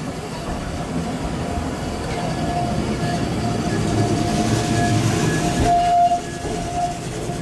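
Single-car Keifuku Electric Railroad (Randen) tram running along the station platform: wheel and motor rumble on the rails, growing louder, with a steady high tone that starts about two seconds in and holds through most of the rest.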